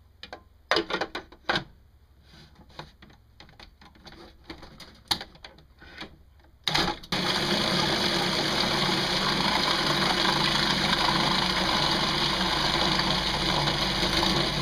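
Food processor grinding raw lizardfish fillets with salt and egg white into surimi paste. A few knocks and clatters of the lid and bowl, then about halfway through the motor starts and runs steadily at full speed.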